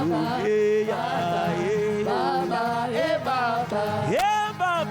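Gospel worship song performed live: voices sing long, wavering notes that slide between pitches over a steady instrumental backing.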